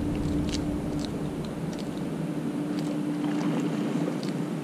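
Steady low hum of a distant motor, holding one even tone, with a few faint clicks and taps over it.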